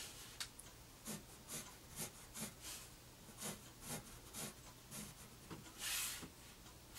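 Faint scratching of a graphite pencil on paper: a series of short strokes, about two a second, with one longer stroke near the end, as straight lines are drawn.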